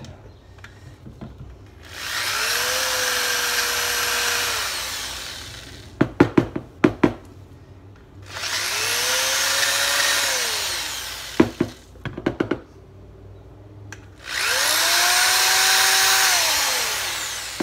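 Corded electric drill with a quarter-inch bit boring into the end of a PVC tube, run in three bursts of about three seconds: each time the motor whine rises, holds steady and falls away as the trigger is let go. Short sharp knocks and rattles between the bursts.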